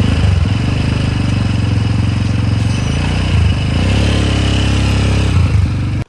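Small motorcycle engine running steadily, with a fast even beat from the exhaust; it cuts off suddenly at the end.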